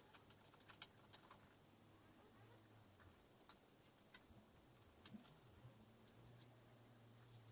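Faint, scattered light clicks and taps of hand work on a car's electric window switch and door trim, over a faint low hum.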